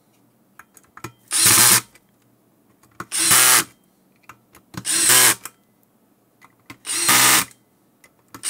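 Electric screwdriver running in short bursts of about half a second, roughly every two seconds, driving in and tightening the screws that hold a motor controller's circuit board in place.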